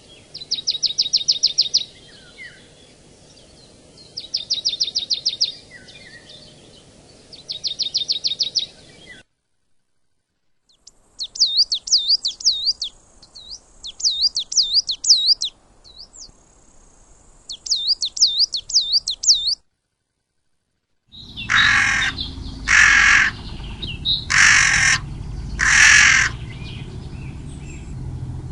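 Three separate recordings. First comes a fast, high pulsed trill, three times. Then a bird sings repeated high whistles that rise and fall. Then a crow caws loudly several times.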